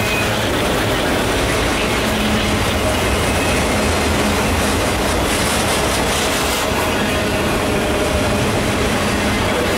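Enclosed autorack freight cars rolling past close by: a steady noise of steel wheels running on the rail, with some clatter.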